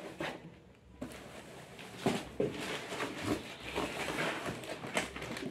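Plastic packaging crinkling and rustling, with cardboard box flaps being handled, as a parcel is unpacked by hand; the rustling starts about a second in.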